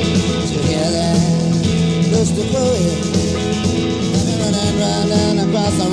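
Live rock band with guitars, bass and drums playing an instrumental passage, a lead line weaving and bending in pitch over the steady accompaniment.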